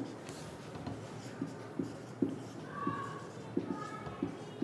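Marker pen writing on a whiteboard: irregular short taps and strokes of the tip, with two brief squeaks about three and four seconds in.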